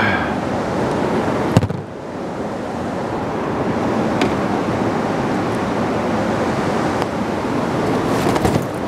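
Steady rushing of wind on the microphone. A sharp knock comes about a second and a half in, and a few small clicks near the end.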